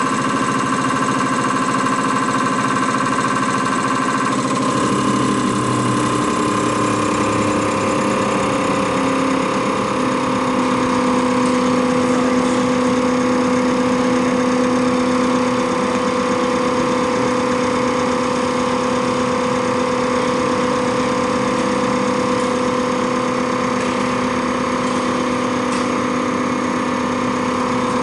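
Common rail injector test bench running: its electric motor and high-pressure pump give a steady machine sound with several steady tones. The tones shift in pitch about four and a half seconds in.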